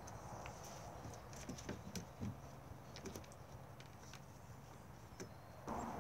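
Wheaten terrier puppies scuffling and playing on grass, heard as faint scattered taps and scuffs, with a few soft thumps about two seconds in. A louder, steady rush of noise begins near the end.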